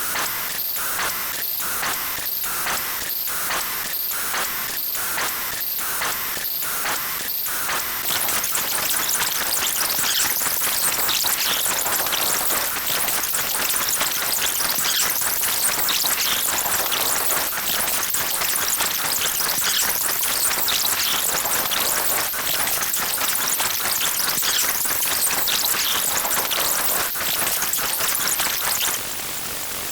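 Loud, harsh static-like hiss. For the first seven seconds or so it pulses about one and a half times a second, then it turns into a denser steady hiss that drops off shortly before the end.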